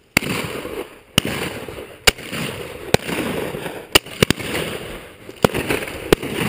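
Shotgun shots, about eight of them fired in quick succession at uneven spacing, each followed by a trailing echo.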